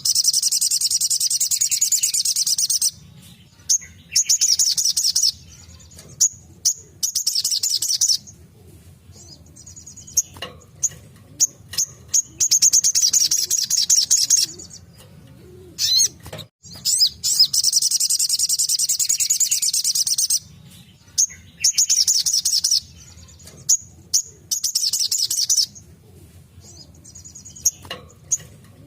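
Little spiderhunter (sogok ontong) singing: long, very rapid, high-pitched trills of a few seconds each, with short sharp chirps between them.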